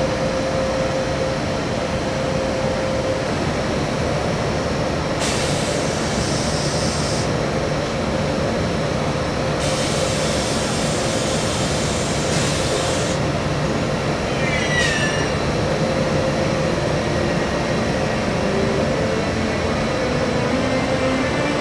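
Electric train running at the station, a steady rumble and hum with two spells of high hissing and a brief falling squeal from the wheels. Near the end a rising whine sets in as it gathers speed.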